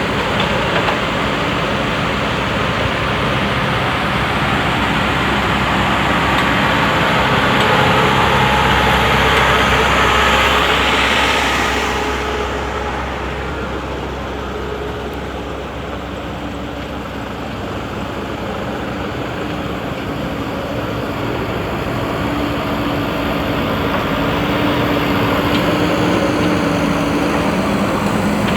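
JCB 3DX backhoe loader's diesel engine running continuously, revving up and louder for several seconds early on, dropping back in the middle, then building again near the end as it works.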